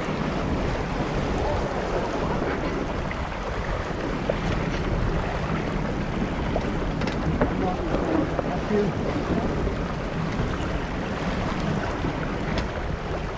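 Wind buffeting the microphone and water rushing along the hull of an Impulse 26 sailboat under way, a steady noisy rush with a few faint ticks.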